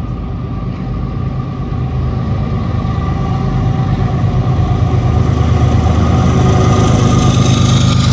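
Canadian Pacific diesel freight locomotive engine running as the train approaches and passes close below. Its steady low drone grows louder throughout.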